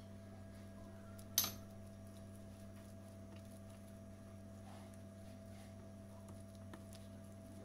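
Faint taps and scrapes of a silicone spatula mixing margarine into flour in a stainless steel tray, with one sharp clink against the metal tray about a second and a half in. A steady low hum runs underneath.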